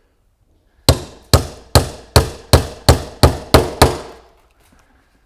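Hammer driving a nail through a cedar corner joint: nine quick, even strikes, about two and a half a second, stopping about four seconds in.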